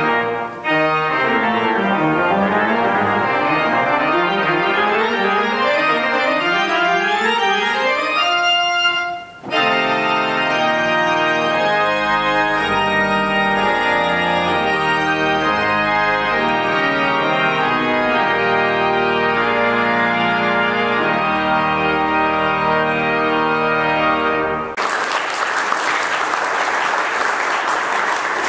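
Pipe organ playing: fast rising and falling runs, a brief break about nine seconds in, then long sustained chords over low pedal notes as the piece closes. The organ stops about 25 seconds in and the audience applauds.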